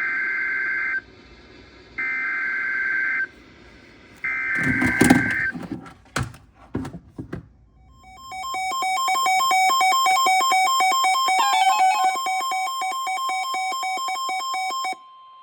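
Emergency Alert System header: three buzzy digital data bursts about a second apart, then a few clicks, then a loud electronic alert tone with a rapid stepping warble over it, lasting about seven seconds before it cuts off. The tones mark the start of a new alert, here a severe thunderstorm warning.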